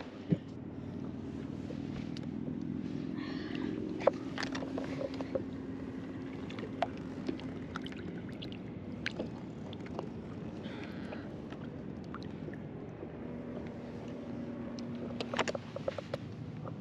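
Steady low hum of a boat's motor, with a few held tones in it, and scattered knocks and taps on the boat, a cluster of them near the end.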